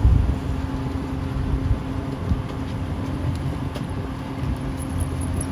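1973 Evinrude 35 HP two-stroke outboard running steadily with the boat underway, with wind rumble over it.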